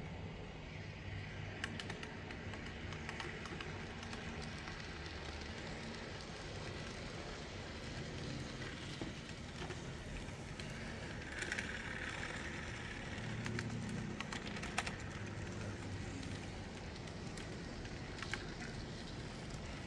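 Model freight train rolling along its track: a steady electric motor hum and wheel rumble, with a few sharp clicks scattered through it.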